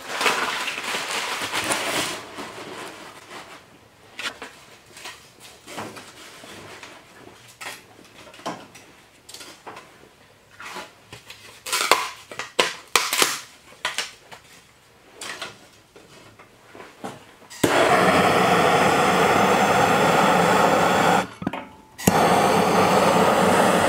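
Sticks of kindling knocking and clattering as they are handled and laid into a cast-iron wood cook stove's firebox, in scattered clicks and knocks. About 18 s in, a handheld gas torch starts with a loud, steady hiss to light the kindling; it stops for about a second near 21 s, then starts again.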